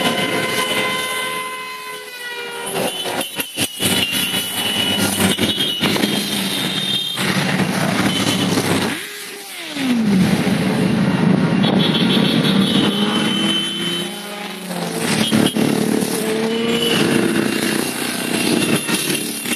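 A stream of motorcycles riding past one after another, engines running. About halfway through, one bike's engine note falls sharply in pitch as it goes by.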